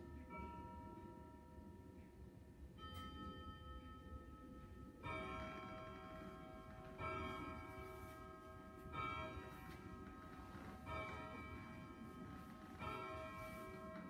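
Bell chimes struck one at a time, each ringing on and fading. A few notes of different pitch come first, then from about five seconds in the same chime repeats about every two seconds, five times.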